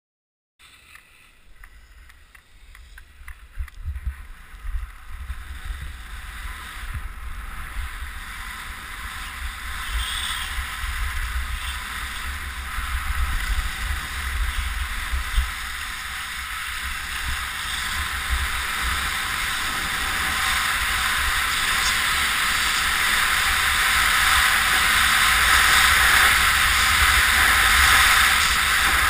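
Wind buffeting the microphone of a body-mounted camera with the hiss of skis sliding over snow during a downhill run, getting steadily louder.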